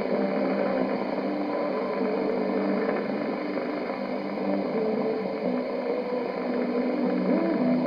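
Shortwave AM broadcast on 6300 kHz heard through a communications receiver: music with held, changing notes, buried in a steady hiss of static.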